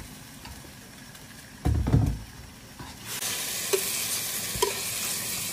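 A dull thump about two seconds in. Then, from about three seconds in, food sizzles steadily in a hot wok, with a few light clinks of a metal spatula against the wok.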